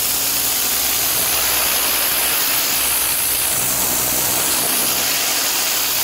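Kärcher K7 pressure washer spraying: a loud, steady hiss of the water jet blasting flaking paint and grime off the trailer's frame, over the steady hum of the washer's motor and pump.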